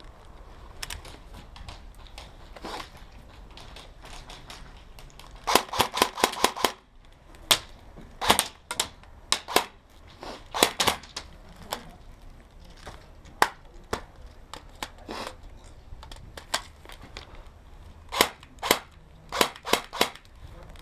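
Airsoft guns firing in an exchange: a rapid burst of about six shots about a quarter of the way in, scattered single shots after it, and another quick string of shots near the end.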